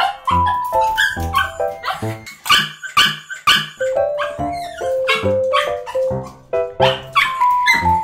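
A small dog barking and yipping over background music with a bright stepped melody, in excited greeting at meeting a familiar dog again.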